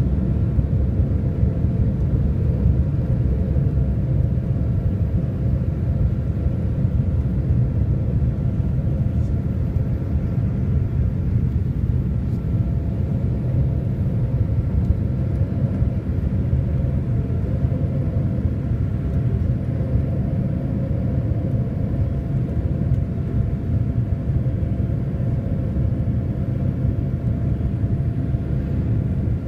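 Inside the cabin of a Boeing 787-8 Dreamliner during takeoff and initial climb: a steady low rumble from its GEnx-1B turbofan engines at takeoff power, mixed with airflow noise. A few faint steady whine tones sit over the rumble.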